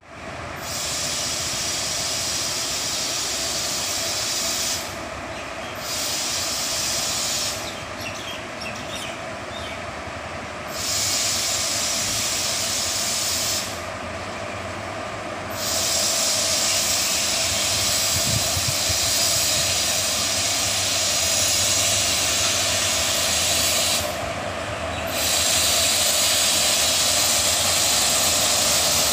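WAG-7 electric locomotive moving slowly, with a steady loud hiss and whine from its cooling blowers; the high part of the hiss drops out briefly a few times.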